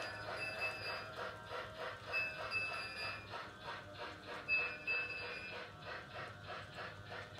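Polar Express toy train set running on its track around the tree, with a steady rhythmic clicking of about four or five beats a second. Three short high tones sound over it.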